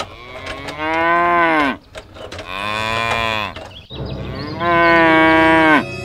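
Cow mooing three times, each call about a second long and dropping in pitch as it ends.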